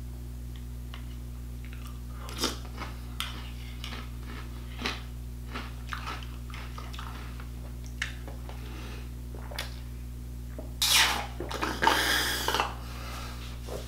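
Chewing cereal with scattered small clicks and crunches, then loud slurping for about two seconds, starting about eleven seconds in, as the leftover milk is drunk straight from a plastic bowl. A steady low hum runs underneath.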